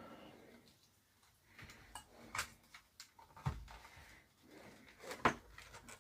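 Scattered light clicks and knocks of the opened radio alarm clock's plastic case and parts being handled and moved about while hunting for a small loose button inside, with two firmer knocks about three and a half and five seconds in.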